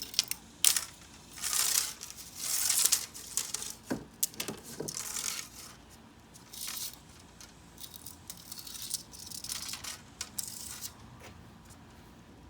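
Old plastic spline being pried and pulled out of a window screen frame's channel, with the old mesh screen handled and freed. It makes a run of irregular scraping, crinkling rasps and small ticks that die away near the end.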